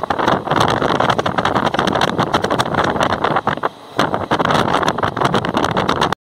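Express passenger train running at speed, heard at an open carriage window: a loud rush of air with dense rattling clatter. It drops away briefly a little past halfway, then cuts off abruptly just before the end.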